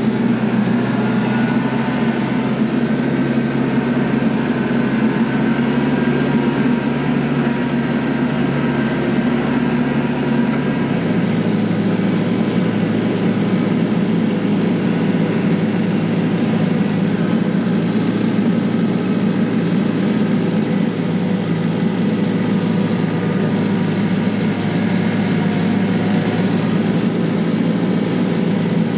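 An engine running steadily, its low hum shifting about eleven seconds in.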